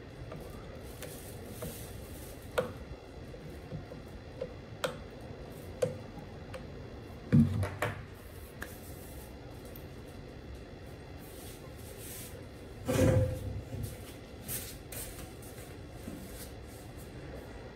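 Handling noise from taking apart a Dyson V8 vacuum's plastic cyclone assembly by hand: scattered small clicks of plastic parts and a screwdriver, with two louder knocks about seven and thirteen seconds in.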